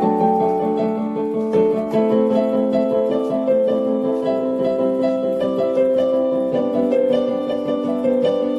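Background music: a piano or keyboard melody over sustained chords, with notes changing every half second or so.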